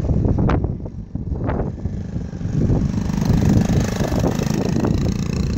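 1970 Honda CT70 Trail minibike's small four-stroke single-cylinder engine running as it is ridden past, getting louder as it comes close about halfway through.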